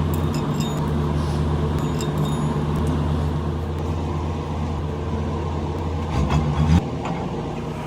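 Heavy machinery running with a steady low hum. Between about six and seven seconds in, the pitch briefly rises and it gets louder before settling again.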